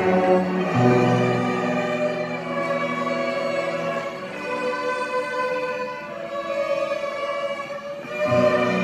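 Fourth-grade string orchestra of violins and cellos playing. Low cello notes sound at first, drop out about two seconds in while the higher strings carry the tune, and come back in near the end.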